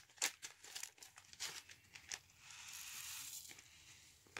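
Small plastic bag of foam beads crinkling as the beads are shaken out into a bowl: scattered faint crackles, with a steadier rustle for about a second past the middle.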